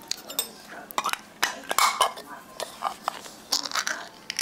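A metal measuring spoon clinking and scraping against a tin of baking powder as its lid is pried open: a string of small, irregular metallic clicks, busier near the end.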